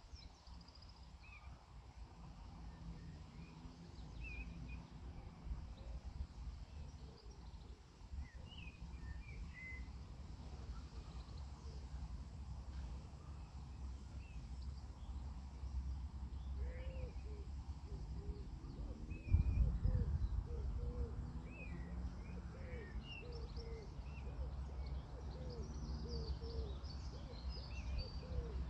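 Birds calling: scattered short high chirps throughout, joined a little past halfway by a run of lower, repeated calls. A low rumble runs underneath and swells briefly about two-thirds of the way in.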